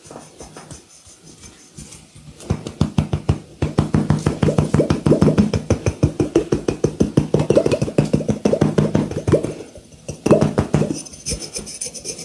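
Hands striking a body in quick rhythmic percussive massage strokes, many strikes a second, each with a hollow, slightly pitched slap. The strokes start about two seconds in and stop briefly near the end before starting again.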